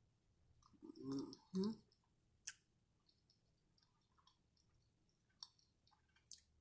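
Close-miked mouth sounds of someone eating a quesadilla: soft, scattered wet clicks and smacks of chewing. About a second in there is a short hummed, voice-like sound, and a few sharper clicks follow.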